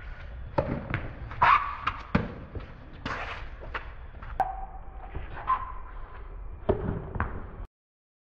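Doubles tennis rally on a hard court: a run of sharp pops from rackets striking the ball and the ball bouncing, at uneven intervals. The sound cuts to silence near the end.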